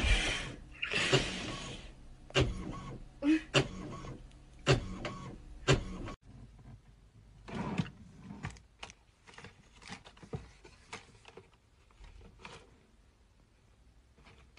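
Home printer running, with a whirring paper-feed sweep and a series of sharp mechanical clicks about once a second. After about six seconds it cuts to fainter scattered taps and rustles.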